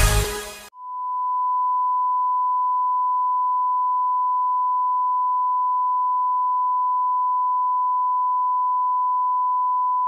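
Electronic music cuts off abruptly under a second in and gives way to a steady, unbroken test tone: the single-pitch reference beep that goes with colour bars.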